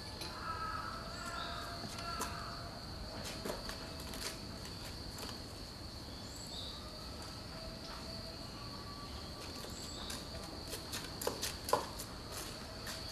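Insects trilling steadily at a high pitch, with a few short chirps every few seconds and scattered faint clicks and taps.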